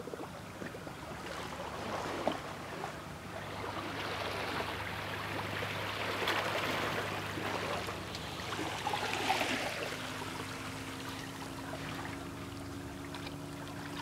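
Calm sea water washing gently on the shore, a steady wash that swells louder twice, about six and nine seconds in.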